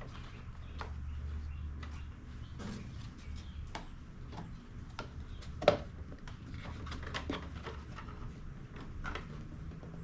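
Plastic air filter parts being handled and fitted onto a Honda GCV200 engine: scattered light clicks and knocks, with one sharp click a little past halfway, over a low steady hum.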